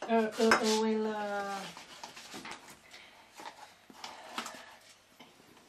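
A drawn-out vocal "ohh", held for about a second and a half and falling slightly in pitch, followed by scattered light taps and clicks of a spoon and cup.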